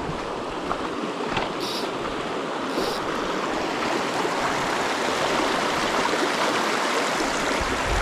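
Creek water flowing over its bed, a steady rushing wash that grows slightly louder.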